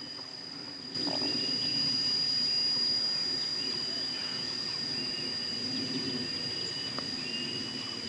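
A songbird whose voice is close to that of the bulbul family gives short chirping phrases over and over, starting about a second in, over a steady high-pitched insect drone.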